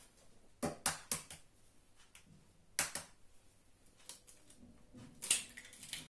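Sharp clicks and light knocks of eggshells being cracked and handled as eggs are separated into yolks and whites: a quick run of three about a second in, another near the three-second mark, and the loudest near the end.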